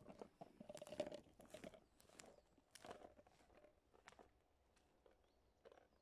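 Footsteps through grass and pine needles on a forest floor, close by at first, then fainter as the walker moves away, about one step every half second.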